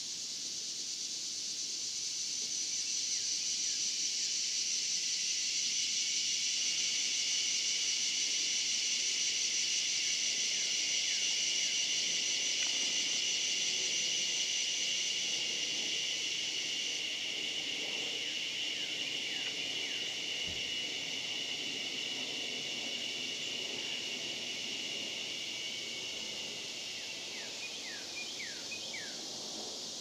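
A chorus of cicadas keeps up a steady high-pitched drone that swells and then eases. A higher layer of the drone stops about halfway through, and the rest fades near the end. A few short, quick chirps from birds come in over the last few seconds.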